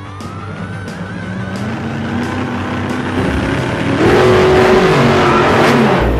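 A vehicle engine revving up, rising in pitch and growing louder, then rushing past about four seconds in with its pitch falling, and cutting off abruptly.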